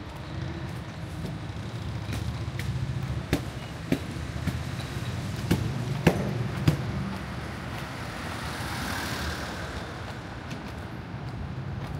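Street traffic noise on a wet road: a steady low engine hum, with a hiss that swells and fades about nine seconds in. A handful of sharp taps fall a little over half a second apart in the middle.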